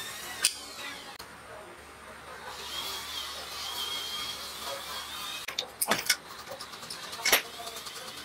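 Metal parts of a small four-stroke grass cutter engine clinking and knocking as it is taken apart by hand: one sharp clink about half a second in and several more in the second half.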